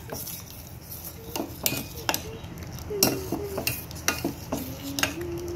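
A metal spoon stirring thick ragi porridge in a stainless steel pot, scraping and clinking against the pot at irregular intervals, over a low steady hum.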